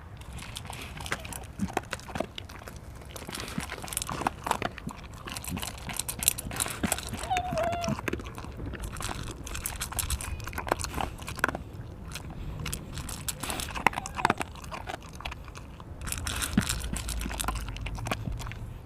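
Dog chewing and crunching food, with many sharp crunching bites in quick, irregular succession.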